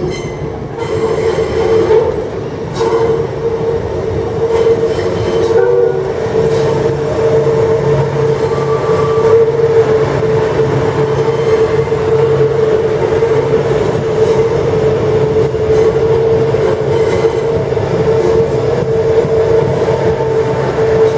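A Queensland Rail ICE electric multiple unit running past the platform, with a steady whine over loud running noise that builds about a second in and holds as the carriages go by.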